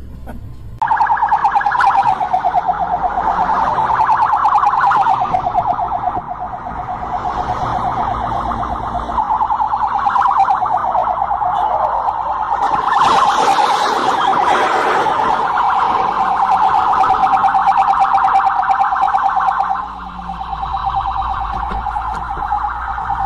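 Police car siren sounding continuously with a fast, rapid warble. A burst of noise breaks over it about halfway through, as a police car tips onto two wheels and rolls over.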